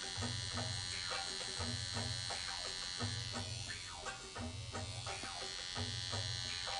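Electric tattoo machine fitted with a 9 round liner needle, running with a steady high-pitched buzz while lining skin. Background music with a regular bass beat plays under it.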